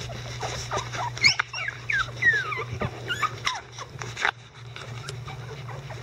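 Icelandic Sheepdogs whimpering: a run of high, squeaky calls that fall in pitch, mostly in the first half, mixed with rustling and small knocks.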